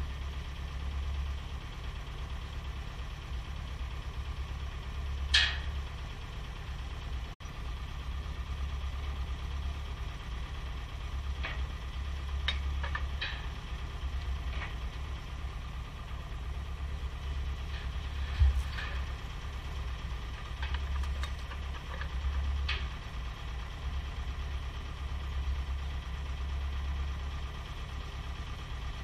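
Engine idling steadily with a low hum, with scattered short clicks and knocks: a sharp one about five seconds in, a cluster a few seconds later, and a heavier thump past the middle.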